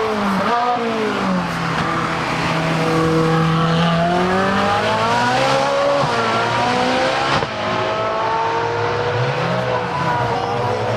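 Competition car engine accelerating hard under full throttle, its pitch climbing through the revs with sharp drops at the gear changes about six and seven and a half seconds in.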